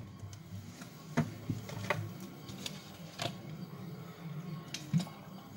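Plastic water bottle being taken from a refrigerator and drunk from: scattered light clicks and knocks over a faint low hum.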